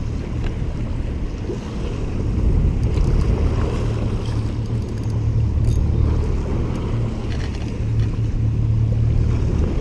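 Steady low rumble of wind and water on the open water, with no distinct events.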